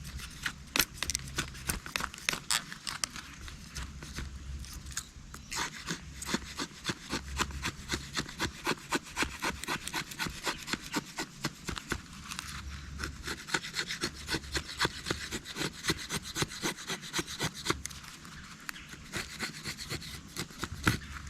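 Fixed-blade knife shaving feather-stick curls off a split stick of hard wood: quick, repeated scraping strokes, a few each second, with short pauses between runs.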